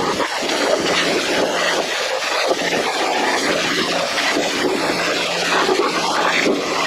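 Pressure washer jet spraying onto a Jeep JK frame: a loud, steady hiss of water spray with a faint low hum underneath.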